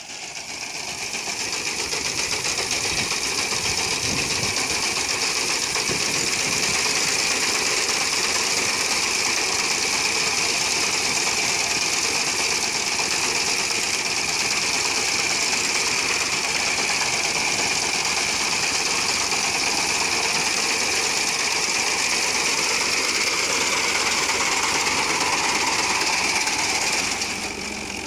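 Fiat 480 tractor's diesel engine running steadily under load while its front-mounted reaper cuts standing wheat, the cutter bar's fast clatter over the engine. The sound drops quieter about a second before the end.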